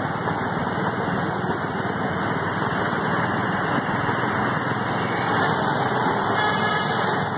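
Steady engine and road noise from a moving vehicle in traffic.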